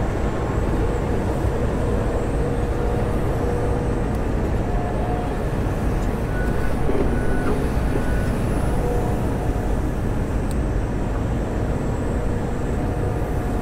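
John Deere 345 excavator's diesel engine and hydraulics running steadily under working load, heard from inside the operator's cab as the bucket is moved, with a faint steady whine over the engine noise.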